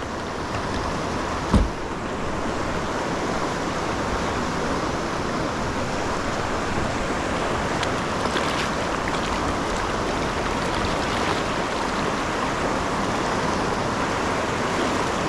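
Whitewater river rushing in a steady, even roar of moving water, with a single sharp knock about a second and a half in.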